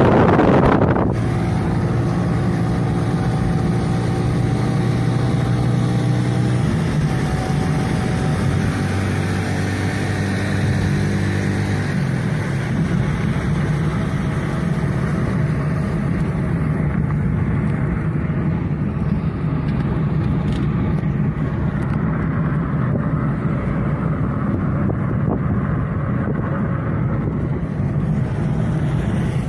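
A car's engine and tyre noise heard from inside while driving at speed. There is a brief burst of wind noise at the very start. A steady engine drone shifts pitch twice in the first half, then the rest is a steady road roar.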